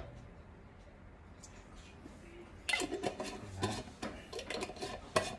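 Quiet at first, then from about three seconds in a run of light clicks and knocks as a glass jar of cooking oil is handled and its metal lid screwed back on, ending in a sharper click.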